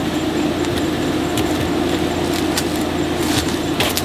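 Honeybees buzzing inside wooden hive boxes, a steady drone, with a few light knocks as the boxes are handled.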